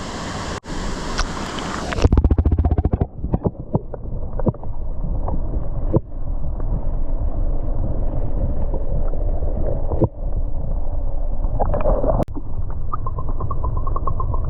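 Muffled rushing and gurgling water heard through a microphone dipped underwater. About two seconds in, the sound abruptly loses all its treble.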